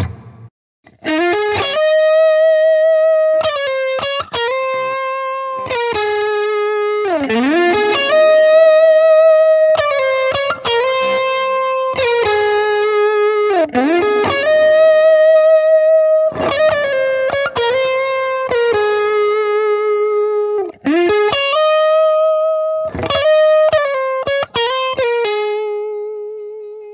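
gfc GHL-570BM headless fanned-fret electric guitar playing a slow melodic lead line: long held notes with wide vibrato, some notes swooping down in pitch and back up, and the last note fading out near the end.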